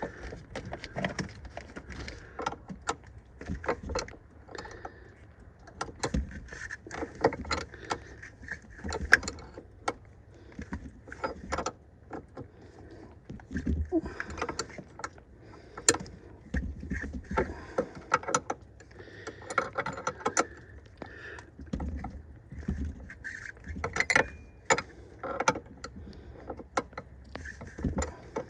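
Irregular metallic clicks, taps and clinks of hands and a wrench working a brass air-line fitting as it is threaded in and tightened.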